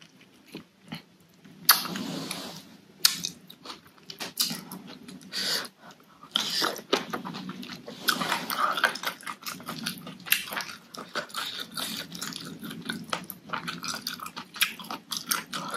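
Eating sounds: wet chewing, lip-smacking and mouth noises as a spicy-sour noodle salad with squid is eaten by hand, with many short irregular clicks. The first second and a half is fairly quiet.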